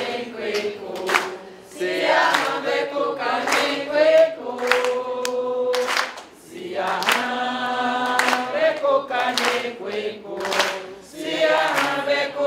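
A group of voices singing together, holding notes through long phrases with short breaks between them about two, six and eleven seconds in.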